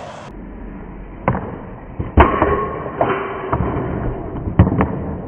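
Skateboard rolling on concrete, broken by a series of sharp clacks and knocks as the board hits a painted concrete ledge, with a brief scrape after the loudest hit about two seconds in. Near the end comes another pair of loud clacks as the skater bails and the board clatters on the ground.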